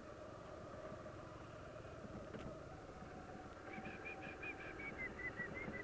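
Yamaha motorcycle running at low speed over cobblestones, faint and muffled. From about two-thirds of the way in comes a rapid run of short high chirps, about six a second, that drop slightly in pitch near the end.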